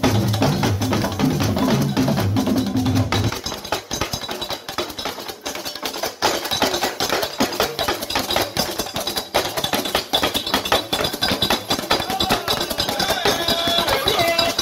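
Drum ensemble playing fast, dense percussion with rapid sharp strikes. Deep low notes sound under the drums for the first three seconds and then drop out. Near the end a higher pitched line bends up and down above the drumming.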